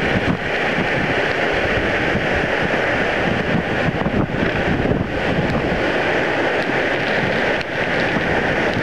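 Steady rush of a waterfall and its mountain stream tumbling over rocks, with wind and spray buffeting the microphone.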